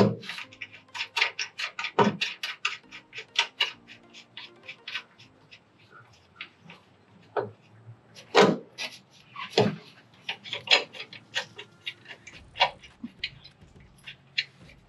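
Irregular metallic clicks and clinks with a few heavier knocks: bolts, nuts and tools at work as a driveshaft hanger bearing is fitted loosely to a pickup's frame rail. A faint steady low hum sits underneath.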